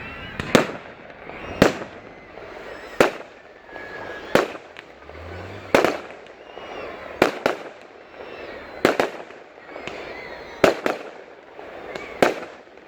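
Fireworks exploding in a steady series, about a dozen sharp bangs, one every second or so and sometimes two in quick succession, each trailing off in an echo.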